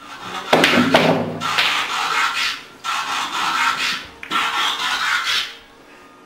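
A telephone ringing: four rasping rings of about a second each, in quick succession.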